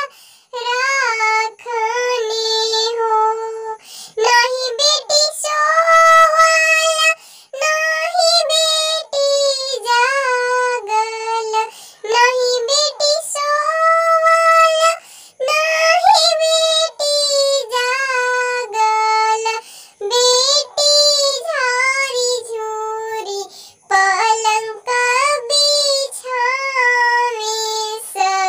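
A high, pitched-up cartoon voice singing a Bhojpuri wedding song (vivah geet) unaccompanied, in sung phrases of a few seconds with short breaks between them.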